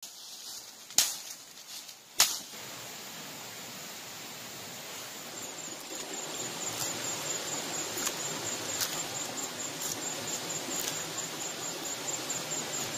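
Steady outdoor background hiss that grows slightly louder partway through, with two sharp clicks in the first few seconds and faint ticks later on.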